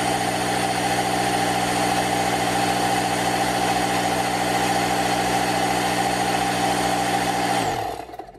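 Parkside PKZ 180 C5 tankless piston air compressor running with a loud, steady, noisy drone. Near the end it is switched off and its pitch falls as the motor runs down.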